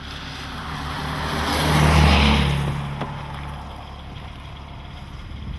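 A road vehicle passing close by: it rises to a peak about two seconds in, then fades away over the next second or so.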